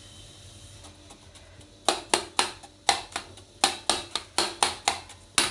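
A knife tapping sharply against a plate or board while brinjal slices are scored with small cuts, about a dozen quick, irregular clicks in the second half.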